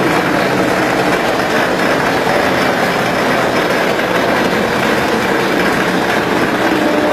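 Automatic cement-plastering machine running: a steady, loud mechanical noise from its motor and drive, with no breaks.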